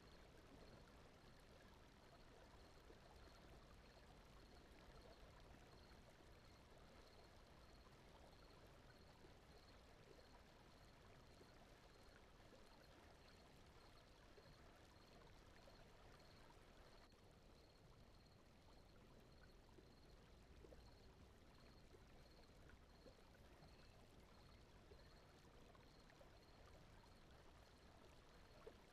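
Faint, steady running-water ambience like a gently flowing stream, mixed with soft background noise. A faint high pulse repeats evenly, a little more than once a second.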